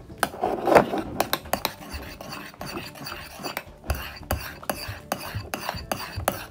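Metal spoon stirring a thick, foamy shaving-cream and glue slime mixture in a porcelain bowl, with repeated sharp clinks of the spoon against the bowl over a soft scraping. The clinks come about three a second in the second half.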